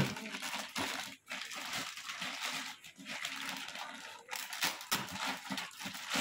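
Silver plastic bag wrapped around an amplifier crinkling and rustling as hands pull at it, coming and going with short breaks.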